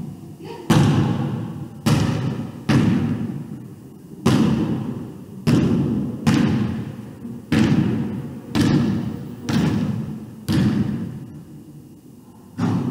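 A basketball bouncing on a hardwood gym floor, about once a second at an uneven pace, roughly eleven times. Each thud echoes and fades away in the big hall.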